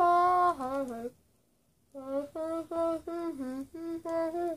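A boy humming and moaning through a closed mouth stuffed with candy. First comes one held hum, then a pause of about a second, then a quick run of short hums.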